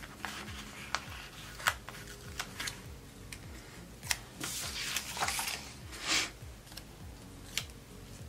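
Loose planner pages and sticker sheets handled on a wooden desk: scattered light taps and clicks, with paper sliding and rustling for a couple of seconds about halfway through as the pages are moved.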